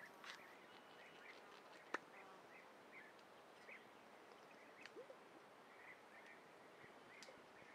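Faint woodland ambience at dusk with scattered short, high chirps. A single sharp click sounds about two seconds in, with a weaker one near five seconds.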